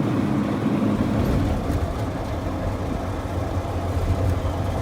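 Volvo 164's B30 straight-six engine and drivetrain heard from inside the cabin while driving, a steady mechanical drone mixed with noise from the gearbox's worn bearings. About a second in, the sound drops to a lower, steadier drone.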